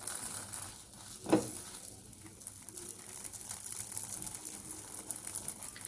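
Butter sizzling under a pizza base frying in a kadhai, a steady high crackle, with one short knock about a second and a half in.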